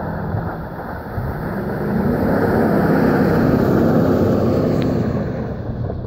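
Pickup truck engine driving past close by, growing louder about two seconds in and fading again near the end.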